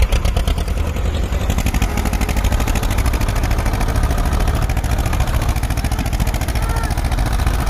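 Two diesel tractors, an Escort 335 and a Sonalika Sikandar 52 HP, running at full throttle under heavy load as they pull against each other in a tug-of-war. The engines keep up a loud, steady, fast beat throughout.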